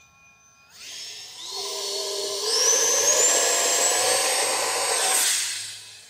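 50mm electric ducted fan of a BAE Hawk model jet on a 4S battery spooling up to full throttle with a high-pitched whine whose pitch steps up twice, then fading quickly near the end as the jet is launched and flies off.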